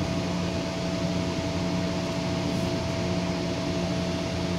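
Steady mechanical hum at a constant pitch over an even hiss, unchanging throughout.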